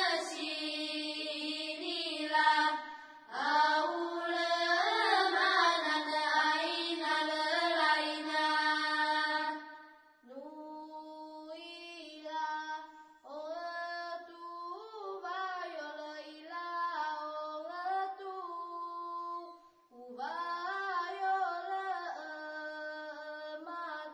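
Background music: a high singing voice in slow, sliding melodic phrases, louder for the first ten seconds and softer after that.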